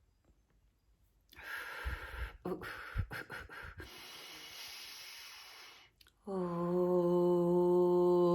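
A woman breathes in and out deeply and audibly, ending in a long even exhale, then about six seconds in starts a steady sung note, one vowel held at a constant pitch, as vocal toning.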